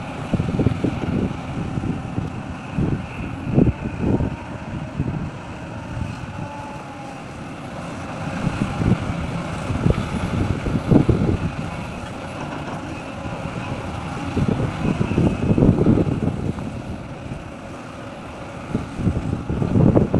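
Heavy diesel machinery running with a low rumble, mixed with irregular gusts of wind buffeting the microphone.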